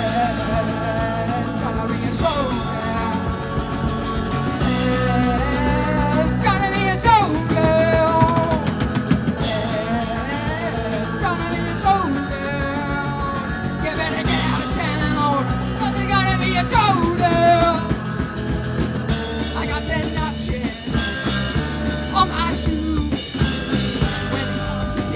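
Live amplified rock band playing: electric guitars, bass guitar and drum kit, with a singer's voice carrying the melody over them.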